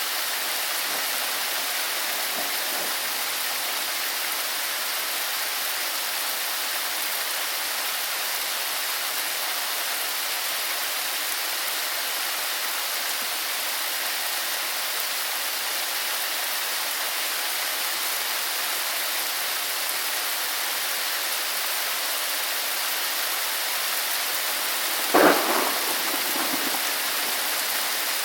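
Steady heavy rain hissing, with a single sharp crack of thunder about 25 seconds in that fades off over a second or two.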